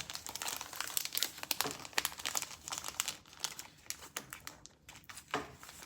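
Plastic comic book bags crinkling as comics are handled, a dense run of irregular crackles.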